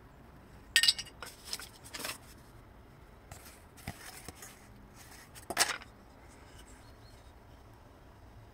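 Handling noises: a series of short sharp clicks and knocks, loudest about a second in and again about five and a half seconds in. They come from the shot aluminium bottle cap being set down on the tiled floor and a wooden board being picked up and handled.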